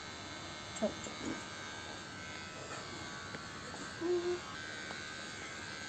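Cordless electric pet hair clipper running with a steady buzz as it trims a long-haired white cat's coat. Two short calls rise over it, about a second in and again about four seconds in.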